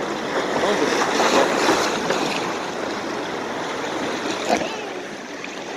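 Rushing, splashing water of a log flume channel around a moving log boat, a steady loud wash. Faint voices come through in the first couple of seconds, and a single knock sounds about four and a half seconds in.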